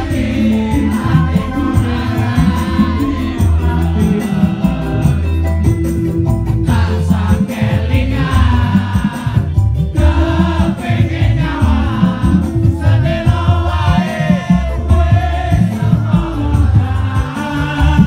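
Live band music through a PA system with strong bass, and a large crowd singing along in unison.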